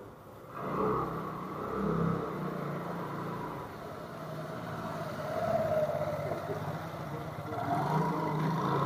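Small motor scooter engine passing close by. It comes in suddenly about half a second in, and its engine note rises and falls as it rides along the street.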